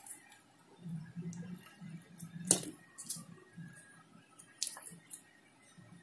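Close handling sounds of wire being twisted onto a spark plug's metal terminal: low rubbing with a few sharp metallic clicks, the loudest about two and a half seconds in.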